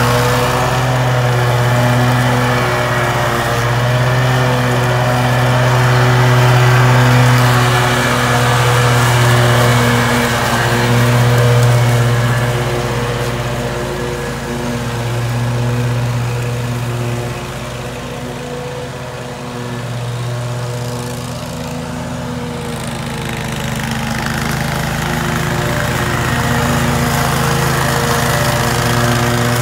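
Toro Grandstand stand-on mower's engine running steadily while it cuts grass, a steady engine hum throughout. It grows fainter about two-thirds of the way through, then comes back up near the end.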